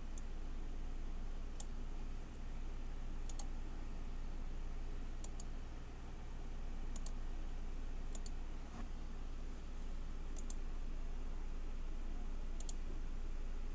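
Scattered computer mouse clicks, about ten over the stretch, some in quick pairs, over a steady low hum.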